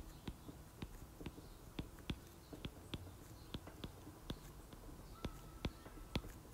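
Stylus tip tapping and clicking on a tablet's glass screen while handwriting: a string of light, irregular clicks, a few a second.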